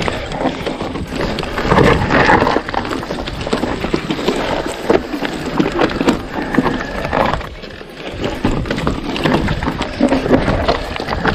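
Mountain bike clattering and rattling over rough trail ground: a constant run of knocks from tyres, chain and frame, briefly quieter about eight seconds in.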